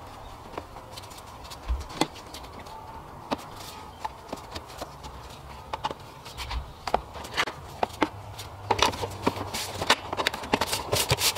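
Scattered clicks and knocks of hands fitting hoses in an engine bay. Near the end comes a quick run of clicks and taps as the plastic engine cover is pressed down and snapped into place.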